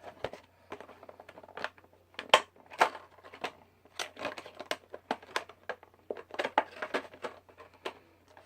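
Phone-case retail packaging being opened and handled: an irregular run of sharp clicks, taps and crinkles.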